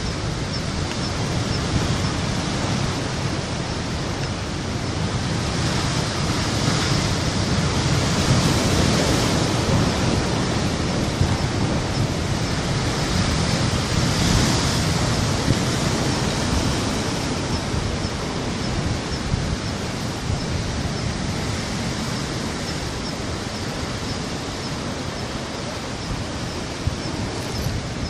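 Sea surf breaking and washing over rocks: a continuous rush of water that swells with a big breaking wave about a third of the way in and again around the middle.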